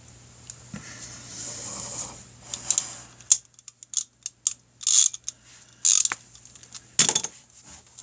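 Scattered sharp clicks and light metallic clinks, like tools or small parts being handled, with a few short hissy rustles about five, six and seven seconds in.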